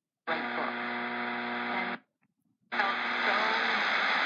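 Shortwave broadcast on 7505 kHz playing through an Eton E10 radio's speaker, with its settings being switched. A steady hum with static comes on for about a second and a half, the audio drops out briefly twice, and after the second dropout a hissy signal with a faint voice comes back.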